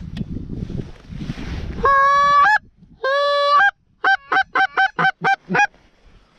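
Goose honking very close and loud: two long honks about a second apart, then a quick run of seven short clucks.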